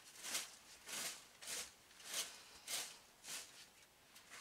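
Dry fallen leaves rustling as they are handled with gloved hands in a wheelbarrow load, in six crackly rustles about every half second or so.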